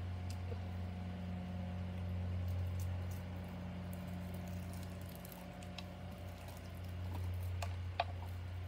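A steady low mechanical hum, with a few faint clicks near the end.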